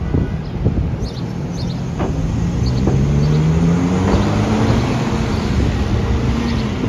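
New Flyer XD60 articulated city bus engine accelerating as the bus pulls away, its note rising in pitch about halfway through and then holding steady, over city traffic rumble.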